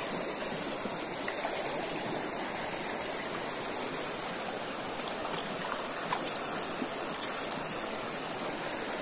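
Shallow rocky stream rushing steadily over stones, with a few faint clicks in the second half.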